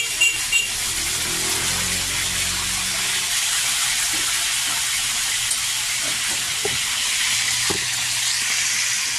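Buraw fish frying in hot oil in a pan: a steady sizzle. Metal tongs clink against the pan a few times at the very start.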